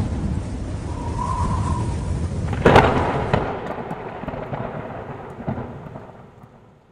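Thunder: a rolling low rumble, a sharp crack about two and a half seconds in, then the rumble dying away to near silence.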